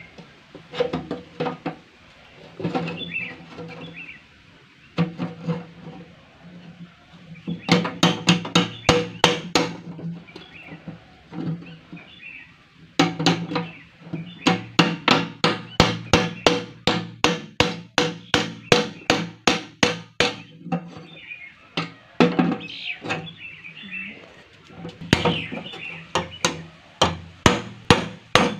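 A hammer strikes a blade driven into the tin top of a metal drum to cut it open, giving sharp metallic blows in quick runs of several a second with pauses between.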